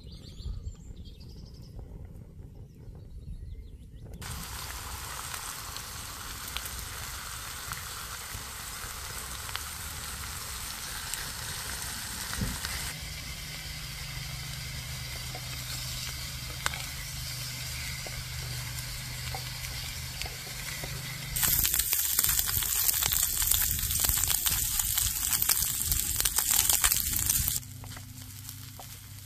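Food sizzling in a pan over an open campfire, a steady frying hiss that jumps in level at several cuts and is loudest and sharpest about three quarters of the way through. The first few seconds hold only a low outdoor rumble before the sizzling starts.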